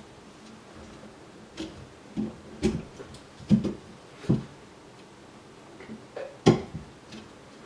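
Irregular knocks and clicks from hands handling a Kossel XL delta 3D printer frame of aluminium extrusions and plastic corner pieces. The loudest come about halfway through and near the end.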